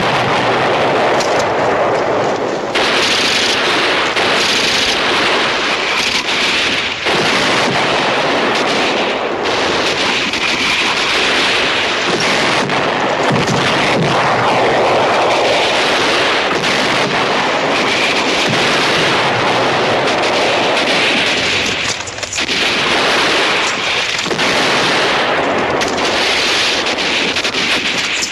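Battle sound effects: a dense, unbroken din of machine-gun and rifle fire mixed with shell explosions.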